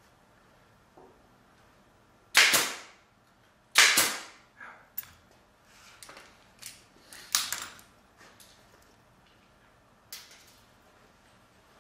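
Staple gun firing staples through convertible-top fabric into the tack strip: two loud sharp snaps a second and a half apart, then a run of smaller clicks and snaps, and one more near the end.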